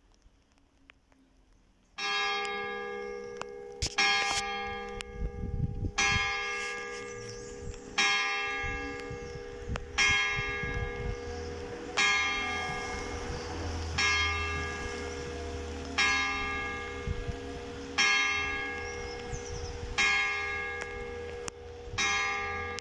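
Church bell tuned to G sharp, tolled by its hammer to strike the hour: eleven strokes about two seconds apart, each ringing on into the next, starting about two seconds in.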